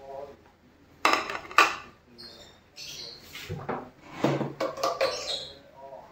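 Plates being set down and shifted on a table. There are two sharp clatters about a second in, followed by lighter knocks and scrapes.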